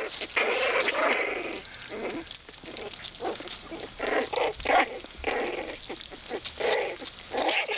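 Havanese puppies play-wrestling, giving a rapid string of short yips, little barks and growls.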